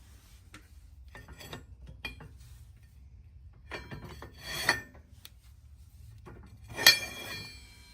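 Metal parts clinking and clattering as a tire machine's ratcheting modification, a metal plate with bearings and hardware, is taken off by hand. Scattered light knocks, a clatter about four and a half seconds in, and a sharp ringing metal clank, the loudest, near the end.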